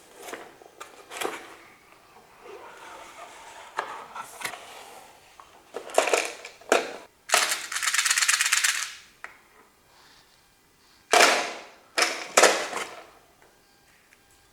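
Unboxing handling noises: clicks and rattles of small hard plastic parts and packaging being handled. About halfway through comes a dense, rapid rasping sound lasting about a second and a half, and a few sharp loud rustles follow later.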